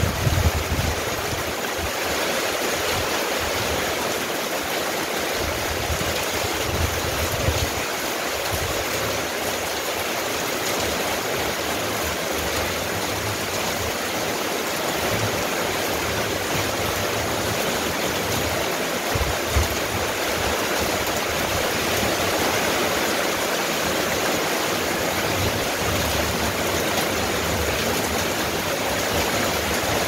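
Steady rain falling on corrugated metal roofing and a wet yard, a dense even hiss.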